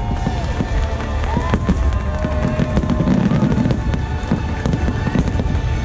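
Fireworks display going off in rapid succession: a dense run of bangs, pops and crackles from bursting shells over a steady low rumble, with the show's music playing underneath.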